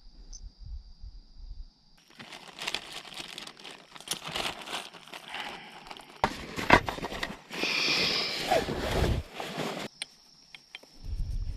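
Plastic bag crinkling and rustling as hands twist and knot it shut, with a few sharp knocks among the rustle, from about two seconds in until near the end.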